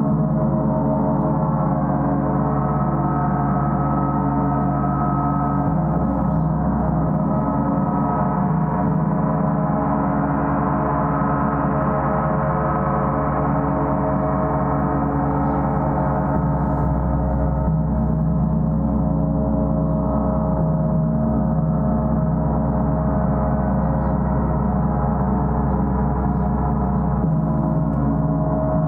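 Gong played in a continuous, steady wash: many overlapping ringing tones and a deep low hum held at an even loudness, with no separate strikes standing out.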